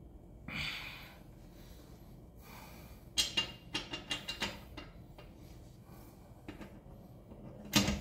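Metal clinks and clicks of lug nuts and a socket wrench as a car's wheel nuts are put back on by hand, with a short scrape about half a second in and a quick run of clicks around the middle. A loud metal clank near the end as the socket goes onto a lug nut.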